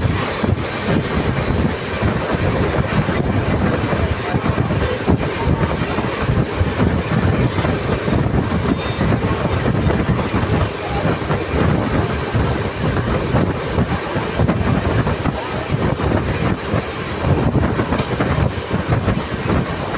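Express train running at speed, heard from an open coach door: a steady, loud rush of the wheels on the rails.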